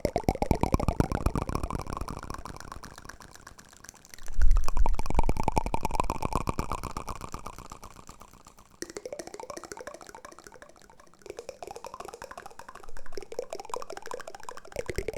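ASMR wooden-spoon trigger sounds: rapid wet-sounding clicking and scraping, with one low thump about four seconds in. In the second half the sound turns into a run of quick, repeated rising sweeps.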